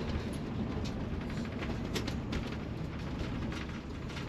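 Steady road and engine rumble heard from inside a moving vehicle's cab, with a few light ticks and rattles.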